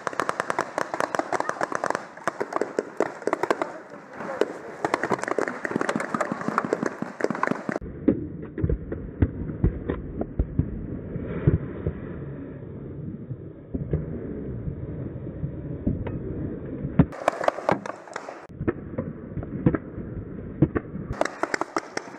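Paintball markers firing in continuous rapid strings of sharp pops, several shots a second.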